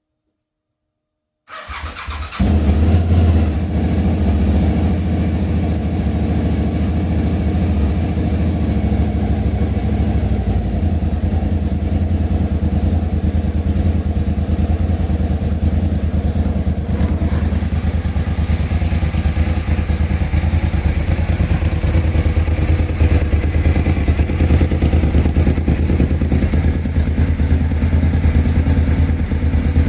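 Suzuki TL1000R's 996 cc V-twin engine cranked on the starter and catching about two seconds in, then idling steadily. The misfire it had at idle has been fixed.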